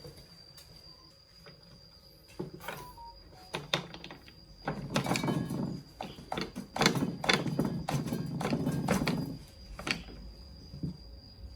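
Hand work on a chainsaw: separate clicks and knocks of tools and parts being handled, then a dense run of rapid knocks and rattles from about halfway in, easing off near the end.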